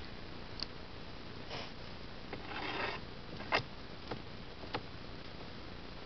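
Quiet handling noise: two short breathy sniffs and a few light clicks, the sharpest about three and a half seconds in, over a low steady hiss.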